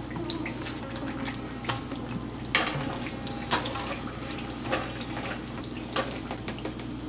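Chickpea-batter-coated eggplant slices deep-frying in hot oil with a steady sizzle. A wire spider skimmer clinks against the frying pan several times, loudest about two and a half seconds in.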